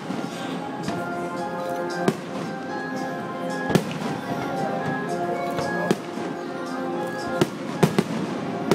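Aerial fireworks bursting with sharp bangs every second or two, three in quick succession near the end, over music with long held notes.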